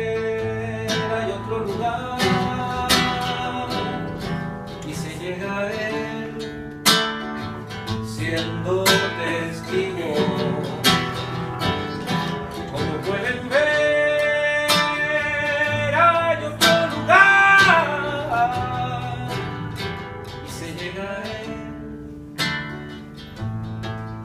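Live band music led by acoustic guitar, with plucked notes and a melodic line and no sung words.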